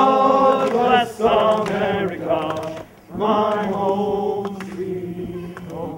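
A group of voices singing slow, sustained notes in phrases, with short breaks about a second in and about three seconds in, fading out at the end.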